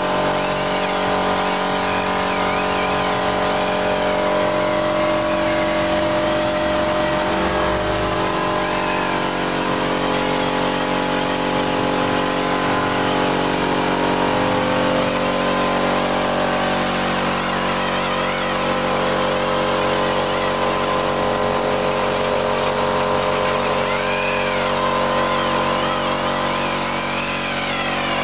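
Air-powered orbital polisher with a foam pad running steadily on a motorcycle fairing, a constant machine whine over a hiss of air. Near the end its pitch wavers up and down.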